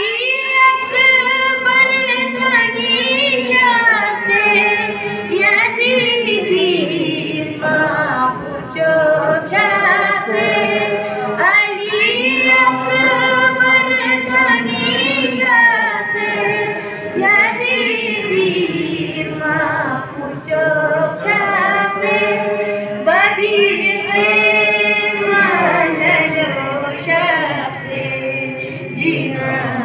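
A young reciter's unaccompanied voice chanting a Balti qasida, a devotional poem, into a microphone, with long held notes that bend and glide in ornamented phrases.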